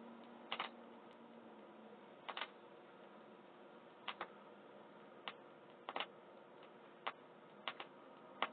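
Audio-Technica VM95SH cartridge's nude Shibata stylus tracking a quiet stretch of vinyl groove: faint surface noise with a click that comes back about every 1.8 seconds, once per turn of a record at 33⅓ rpm, plus a few stray ticks.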